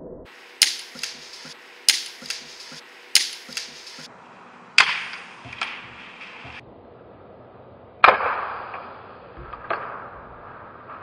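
Sharp cracks, three about a second and a quarter apart, each followed by two fainter knocks. Two more come after them, duller and drawn out, as if slowed down.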